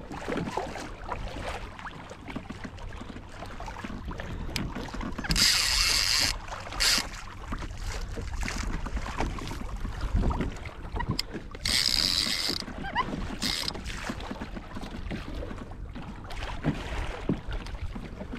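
Wind and water noise around a fishing kayak at sea, a steady low rumble, broken by four short hissing bursts: two about five to seven seconds in and two about twelve to fourteen seconds in.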